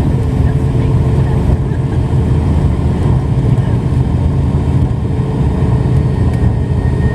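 Turboprop airliner's engines and propellers heard from inside the cabin: a steady low drone with a faint steady hum above it, as the plane rolls along the ground after landing.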